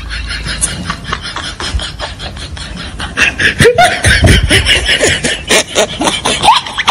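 Laughter in quick, rapid pulses with short rising and falling squeals, getting much louder about three seconds in.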